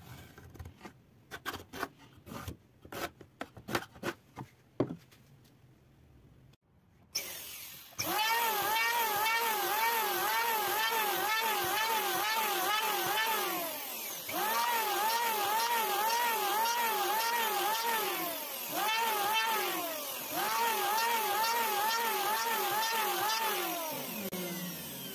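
A few light knocks and taps from handling wooden pieces, then an electric hand planer starts up and runs, its whine dipping and recovering again and again as the blades bite while it bevels the edges of a small wooden board in several passes. Near the end the motor winds down.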